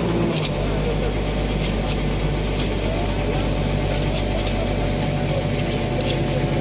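Excavator's diesel engine idling steadily, with scattered short clicks and scrapes as a tool chips caked mud off the track's travel-motor hub.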